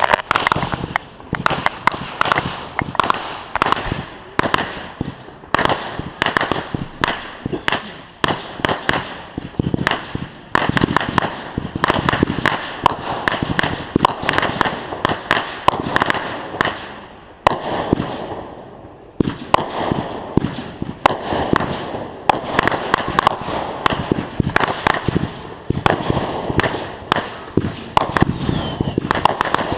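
Fireworks going off in rapid succession, sharp bangs and cracks several a second, easing off briefly a little past halfway before picking up again. Near the end a whistle falls in pitch.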